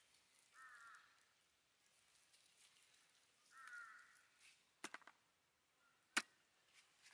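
Faint cawing of a crow, two short calls about a second in and again about three and a half seconds in, followed by a few sharp clicks, the loudest just after six seconds in.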